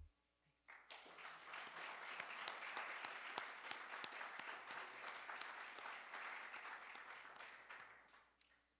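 Applause, a dense patter of many hands clapping, starting about a second in and fading out near the end.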